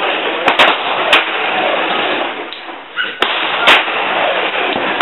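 Several sharp cracks of 9mm Glock pistol shots, the loudest about half a second in and near four seconds in, over steady background noise.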